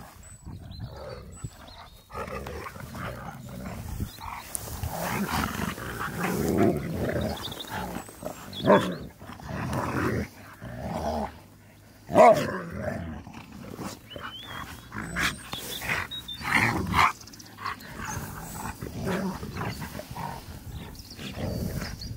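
Two husky-type dogs play-fighting, growling and grumbling at each other, with a few louder snarling outbursts spread through the rough-and-tumble.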